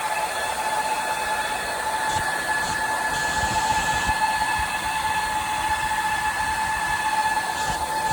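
Rack server cooling fans running at high speed: a steady whoosh of air with a constant high whine over it.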